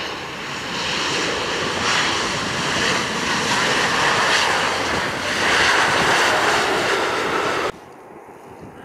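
Airliner engines running loud and close, the noise swelling over several seconds, then cutting off suddenly near the end.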